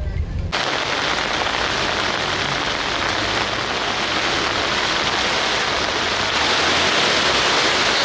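Heavy rain pouring down in a steady, even hiss. It starts suddenly about half a second in and grows a little louder about six seconds in.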